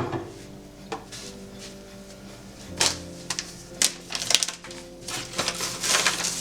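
Kitchen clatter of clicks and knocks: a sharp knock at the start, another about a second in, then a run of quicker knocks from about three seconds in, over soft background music.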